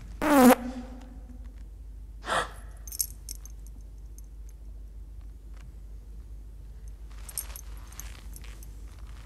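Loud comic fart at the start that drops in pitch and trails off in a held low tone, then a shorter, lower fart about two seconds later.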